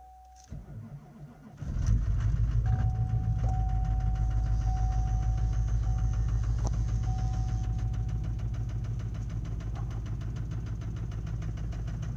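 A 2004.5 Chevrolet LLY Duramax 6.6-litre turbodiesel V8 cranks briefly and catches about a second and a half in. This is a cold start after a night unplugged at around −16 °C. It then idles with a rough, rapid diesel clatter that 'doesn't sound good', on injectors the owner calls old.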